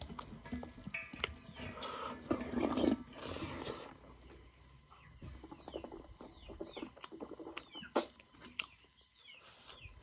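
A person eating rice with nettle curry up close: chewing with wet lip smacks and mouth clicks, a louder stretch of eating noise about two to three and a half seconds in.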